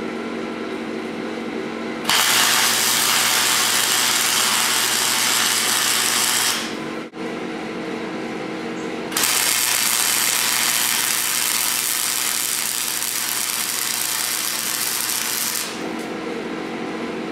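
Wire-feed welder arc crackling as a steel pipe is welded onto steel tubing, in two runs: one starting about 2 s in and lasting some four and a half seconds, then a longer one of about six and a half seconds starting about 9 s in. Between and after the runs, a steady hum.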